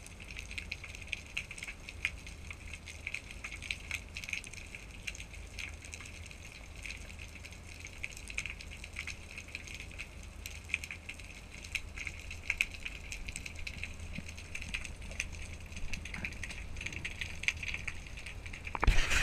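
Underwater ambience: a steady crackle of many small clicks over a low hum, with a louder burst of noise near the end.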